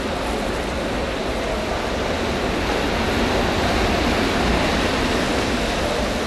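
Steady hall noise in an indoor velodrome, swelling a little as the bunch of track bikes sweeps past on the wooden boards about four seconds in.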